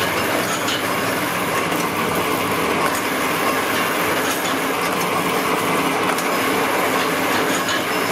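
Belt-driven nut-tapping machine running steadily, its motor, belts and spindle making a continuous mechanical noise, with a few light metallic clicks as nuts are fed under the tap.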